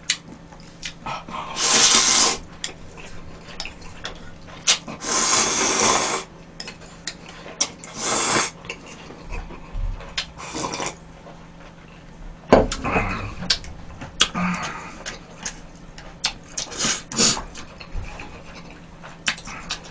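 Buckwheat soba noodles slurped from a bowl of dipping broth: four long, loud slurps in the first ten seconds or so, then shorter slurps and sips with chewing and light clicks of chopsticks and bowl.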